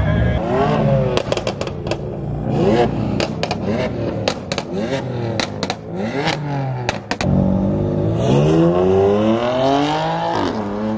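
A BMW sports car's engine with a loud aftermarket exhaust revving and accelerating, its pitch rising and falling several times, with a long rising pull near the end that drops off suddenly. Many sharp cracking pops from the exhaust are scattered throughout.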